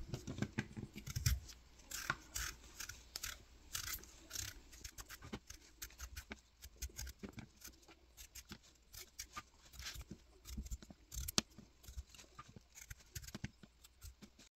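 Small paring knife peeling a raw potato by hand: a quick, irregular run of short, faint scraping and cutting sounds as the blade shaves off the skin.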